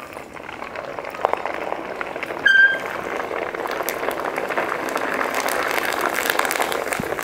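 Large Delhi appalam sizzling and crackling as it deep-fries in hot oil in an iron kadai, held under with a wire skimmer. The sizzle builds after about a second and then stays steady. A brief high squeak comes about two and a half seconds in.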